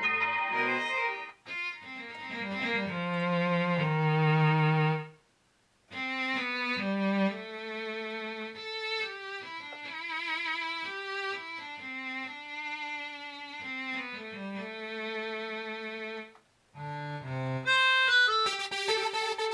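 Roland AX-Edge keytar playing a bowed-string, violin-like patch: a slow melody of held notes, some with vibrato. The playing stops briefly twice, and a brighter synth sound starts near the end.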